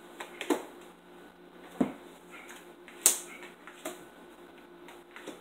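Tarot cards being dealt from the deck and laid down on a table: several sharp taps and card snaps about a second apart, the sharpest about three seconds in.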